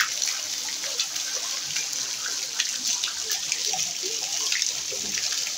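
Water splashing steadily into a small fish pond: a constant hiss dotted with many small ticks of droplets landing on the surface.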